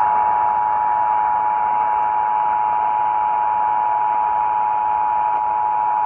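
Emergency Alert System two-tone attention signal: a steady, loud dual tone that announces an emergency alert message, heard over radio hiss.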